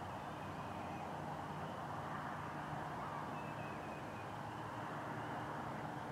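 Steady outdoor background hum and hiss, with faint, high, wavering bird calls a little past three seconds in.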